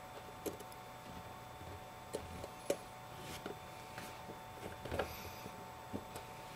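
A handful of faint, scattered clicks and light taps from a small screwdriver and metal parts being handled inside an opened iPhone 5, over a steady faint hum.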